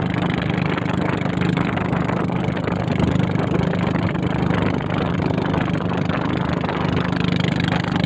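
A small boat's engine running steadily at speed, a constant hum, with water rushing and splashing along the hull as it cuts through waves.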